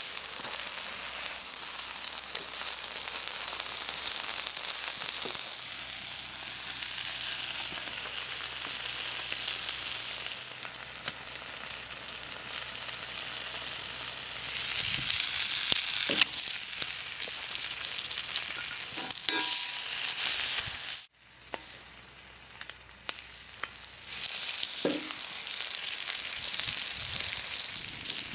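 Food frying in a pan over a wood fire: a steady sizzle with a few light pops and clicks. It drops away abruptly about two-thirds of the way through, then comes back a few seconds later.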